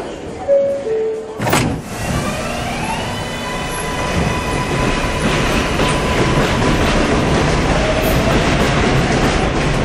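A two-note door chime and a knock as the doors shut, then an electric NYC subway train, an R142, pulls away: its traction motors whine in rising tones as it accelerates, under a steady running noise that grows louder.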